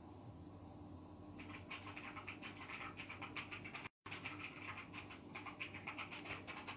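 Rapid, irregular scratching and rustling close to the microphone, starting about a second and a half in. The audio cuts out for a split second near the middle.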